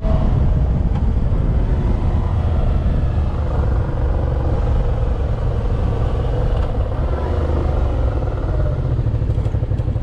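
Suzuki V-Strom 650's V-twin engine running steadily while the motorcycle rides along, with wind rushing over the microphone.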